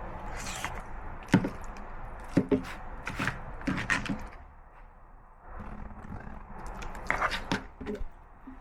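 A series of sharp knocks and light scrapes on a hard surface, in two clusters with a short lull between them, over a steady background hum.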